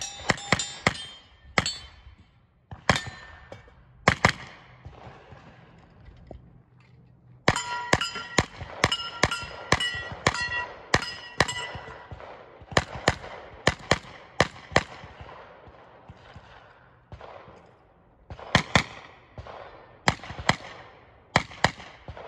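Pistol-caliber carbine, a JP-5 in 9mm, firing rapid strings of shots with short pauses between them. In the middle of the run, steel targets ring on each hit, a clear metallic ring that holds for a moment after each shot.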